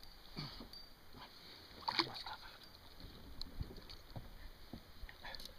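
Water splashing against a kayak on choppy sea, with scattered light knocks and one sharper knock about two seconds in.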